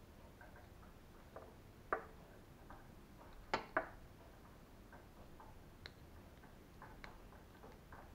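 Faint clicks and ticks of small plastic and metal RC ball-joint parts handled and fitted together by hand, with a sharp click about two seconds in and a louder quick double click a little past halfway.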